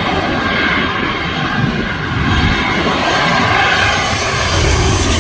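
Passenger airliner's engines running loud and steady: a deep rumble with a rushing hiss that grows brighter toward the end.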